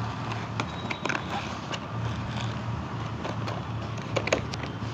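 A power bank's retail box being handled and opened by hand: scattered clicks, crinkles and scrapes of the packaging over a steady low hum.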